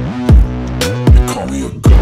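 Hip-hop backing music with no vocals in this stretch: a beat with deep bass hits that drop in pitch, twice, and a short break in the beat near the end.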